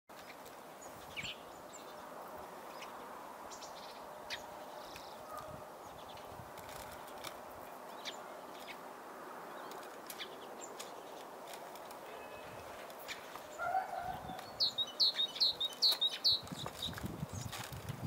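Steady wind noise with faint scattered taps. About fifteen seconds in, a small songbird at the feeder gives a quick run of about six high chirps, and low wind buffets follow near the end.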